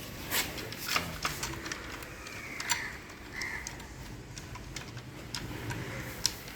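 Scattered light clicks and taps of hand work on a hybrid battery pack, irregular and spread through the few seconds.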